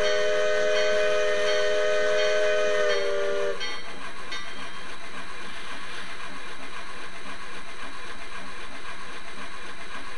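Steam logging locomotive sound track: a chime whistle sounds a steady three-note chord that cuts off about three and a half seconds in. It gives way to the locomotive's steady running noise and hiss.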